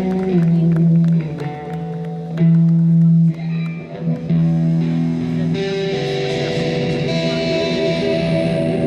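Instrumental music led by guitar, with held low notes and chords; the sound fills out and brightens about five and a half seconds in.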